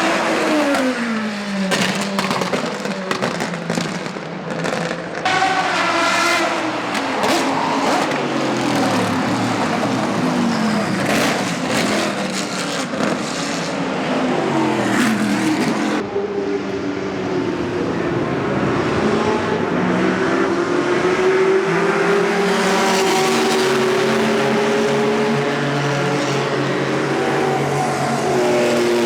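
Historic racing car engines at speed on the circuit. In the first part, cars pass by with their engine notes falling steeply in pitch. After an abrupt change about halfway through, a steadier engine note rises and falls more gently.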